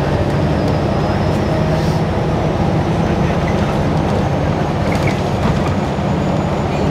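Cabin sound of a New Flyer XDE60 articulated diesel-electric hybrid bus under way: a steady rumble of drivetrain and road noise. A faint high whine slowly rises in pitch, with a few light rattles.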